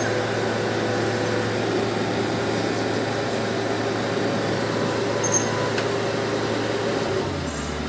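Heavy diesel engine running steadily at constant speed, dropping to a lower speed about seven seconds in.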